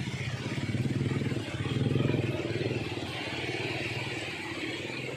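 Small motorcycle engine running as it rides through floodwater, louder about one to two seconds in, over a steady hiss of rain and water.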